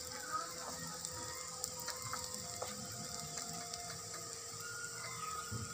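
Ghee sizzling and crackling on a hot cast-iron tawa under a paratha: a low steady hiss with many small scattered ticks.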